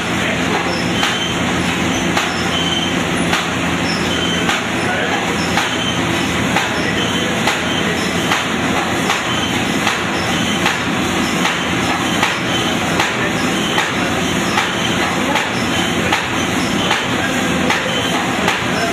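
Paper bag making machine running: a steady mechanical clatter with regular sharp knocks.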